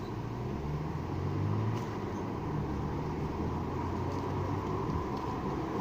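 Road traffic: a car passing, its low engine and tyre rumble swelling about a second in and easing off, over a steady background hiss.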